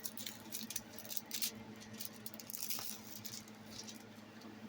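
Irregular crinkling and rustling as a rolled diamond painting canvas and its plastic packaging are handled, over a faint steady electrical hum.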